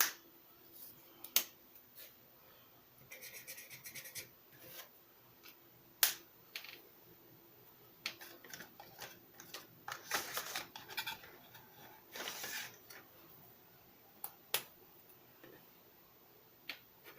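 Dual-tip marker scratching and rubbing across paper in short spells of strokes, with a few sharp clicks in between.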